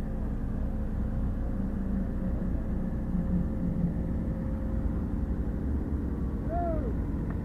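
Excavator's diesel engine running steadily. A brief rising-then-falling tone sounds about six and a half seconds in.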